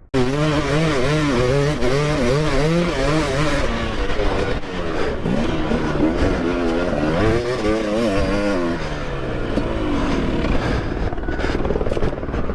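Dirt bike engine revving up and down in quick, repeated throttle blips, with a few sharp knocks near the end.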